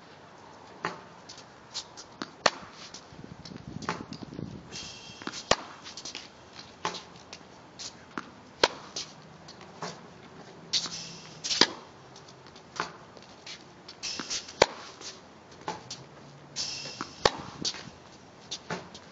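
Tennis racket striking the ball about every three seconds, the sharp loudest hits, with lighter ball bounces and shoes scuffing and shuffling on the hard court between strokes.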